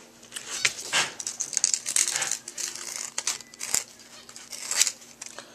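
Sandpaper rubbed by hand around the end of a copper pipe, cleaning it bright for soldering: a quick run of scratchy strokes, thinning out to a few single strokes and a sharp click in the second half.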